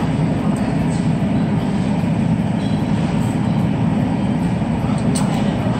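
Steady, loud background noise in a restaurant dining room, heaviest in the low range and unchanging, with no distinct events.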